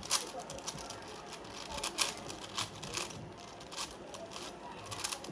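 A 5x5 Rubik's cube, not a speed cube, being turned by hand: irregular plastic clicks and scrapes as its layers rotate. The cube is stiff and hard to turn.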